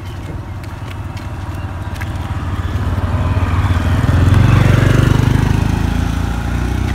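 A vehicle engine running, growing steadily louder to a peak about four and a half seconds in and then easing only slightly, as if drawing near.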